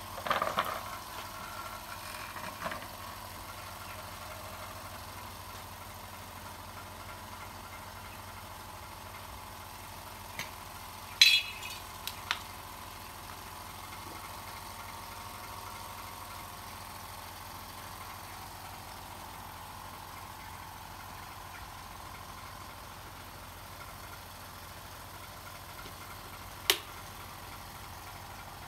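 Small electric air compressor running with a steady hum. A few sharp knocks stand out over it: a short cluster right at the start, the loudest about eleven seconds in, and another near the end.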